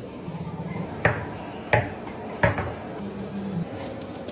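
Three sharp metal clanks about two-thirds of a second apart, each ringing briefly.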